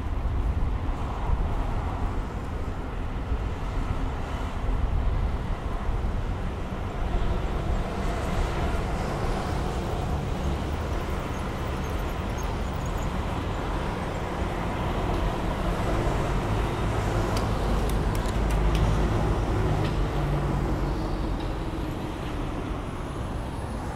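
Steady road traffic noise of cars and other vehicles passing, with engine hum swelling for a few seconds past the middle.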